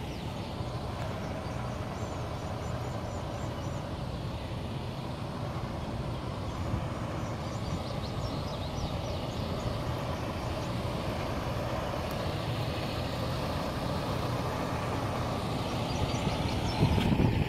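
Diesel semi-truck engine idling steadily. A brief louder burst of noise comes near the end.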